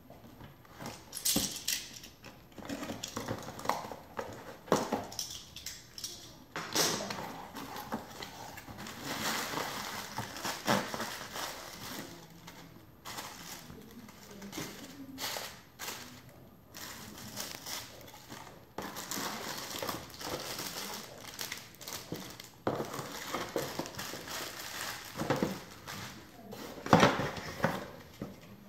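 Cardboard toy box being opened and plastic-bagged parts lifted out: irregular crinkling and rustling of plastic wrap and cardboard, with small knocks as pieces are set down.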